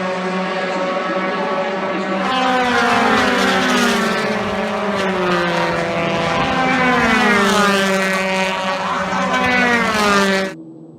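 Several race car engines running at high revs, their pitch sweeping up and down as the cars pass. The sound cuts off abruptly near the end.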